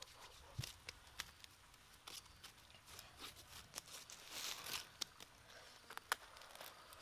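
Faint, scattered rustling and crackling of leaves being handled, with a few sharp light ticks and a longer soft rustle about four and a half seconds in.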